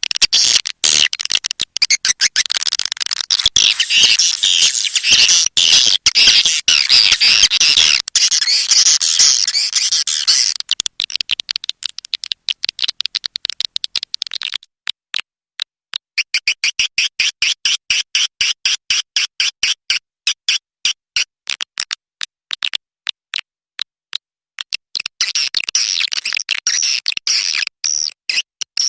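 Swiftlet lure-call recording: high, rapid chirping and chattering of swiftlets, dense for the first half. About halfway it turns into a quick, even train of short chirps, and the dense chattering returns near the end.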